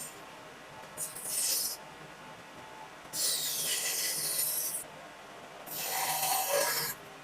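Three long rubbing strokes across a wooden cutting board, each a hissy scrape of about a second or more, with short pauses between.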